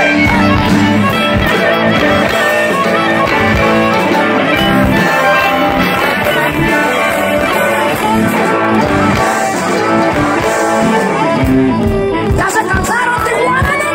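Live rock band playing an instrumental passage through a loud PA: electric guitar, bass, drums and violin.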